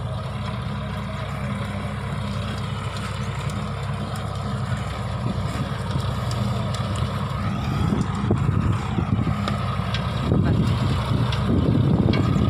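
Tractor engine running steadily under load as it drives a double-rotor rotavator tilling the soil; the sound grows louder and rougher in the last third.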